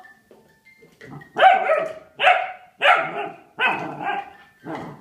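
German Shepherd puppy barking repeatedly, about five barks in a steady rhythm, beginning after a quiet first second or so.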